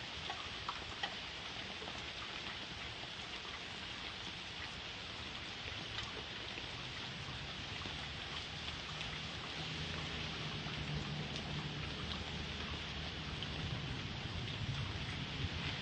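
Steady rain hissing down in a thunderstorm, with scattered raindrop ticks. A low rumble of thunder builds through the second half.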